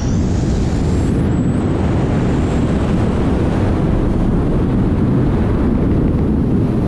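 Loud, steady rush of freefall wind buffeting the microphone of a camera worn by a BASE jumper flying a tracking suit. A thin whistle rises in pitch over the first second and a half.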